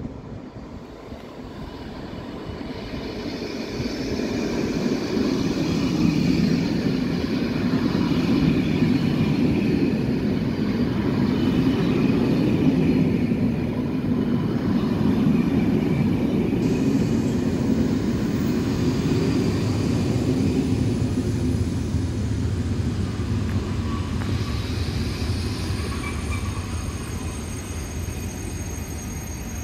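NMBS push-pull passenger train rolling slowly past along the platform: a rumble of wheels on rail that builds over the first six seconds and then holds steady. A deeper steady hum joins in about two-thirds of the way through.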